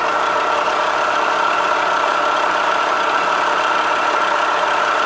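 Vertical milling machine's motor running, a loud, even whine over a hiss.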